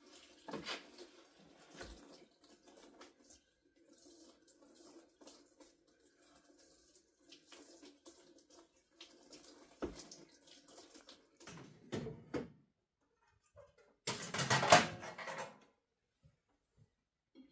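Kitchen tap running into a sink while dishes are washed by hand, with scattered clinks of crockery. About two-thirds of the way through comes a louder burst of noise lasting a second or so, the loudest moment.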